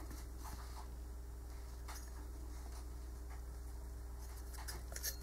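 Faint clicks and scrapes of a caliper being set against a camshaft lobe to measure it, a few light touches over a steady low hum.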